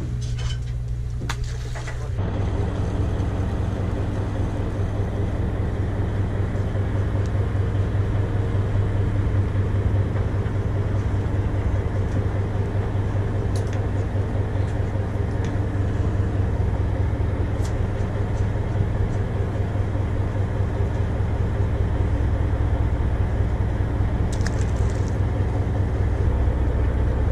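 A boat's engine running steadily: a low, even hum with a fast throb. It grows louder about two seconds in and stays steady, with a few faint clicks over it.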